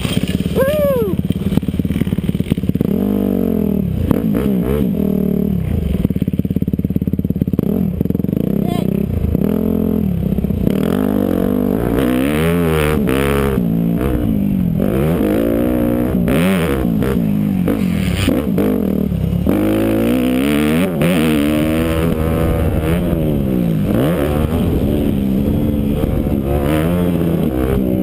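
Yamaha YZ250F's 250cc four-stroke single-cylinder engine revving hard as the dirt bike is ridden. The pitch rises and drops over and over as the throttle is opened and closed.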